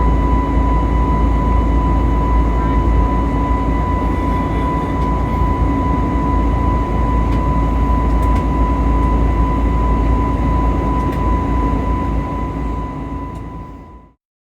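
Steady cabin noise of an Airbus A320neo airliner in flight: a deep, even rush of engines and airflow with a steady high tone over it, fading out near the end.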